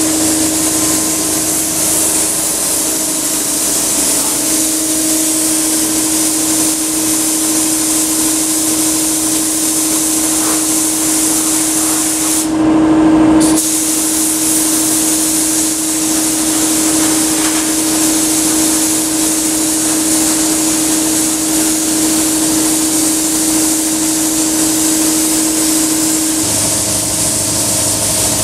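Compressed-air paint spray gun hissing steadily while paint is sprayed, over a steady hum. The spray stops briefly about halfway through and then resumes. A deeper hum joins near the end.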